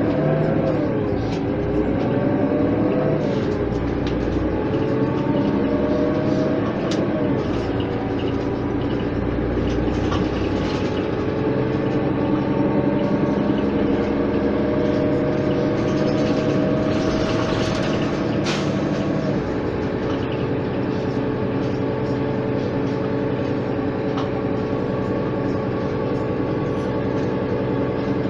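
Mercedes-Benz Citaro city bus with its OM 906 hLA six-cylinder diesel, heard inside the passenger cabin as it pulls away through its ZF Ecomat automatic gearbox. The engine note rises and drops back three times in quick succession with the upshifts, then climbs slowly and steadily. It drops once more about two-thirds through and runs on steady.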